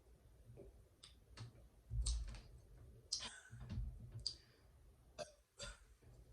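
Close-up eating sounds: scattered wet clicks and smacks of chewing and handling food, with a few louder low thumps about two and four seconds in.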